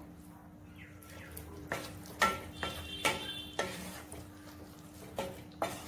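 Wooden spatula stirring thick sauce in a nonstick pan, with irregular scrapes and knocks against the pan as cornstarch slurry thickens the sauce.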